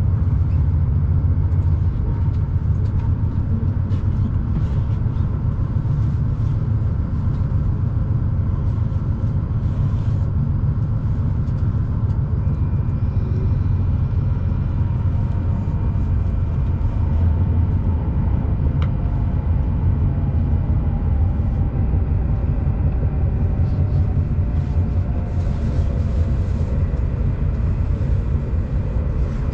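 Shinkansen bullet train running: a steady, heavy low rumble of the ride. In the second half a faint whine slowly falls in pitch.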